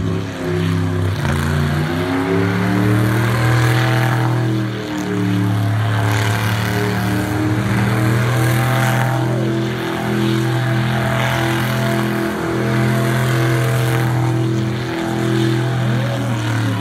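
Rat-rod hot rod engine held at high revs through a burnout, its rear tyres spinning and smoking. The pitch holds steady with a few brief dips, then drops as the engine comes off the throttle near the end.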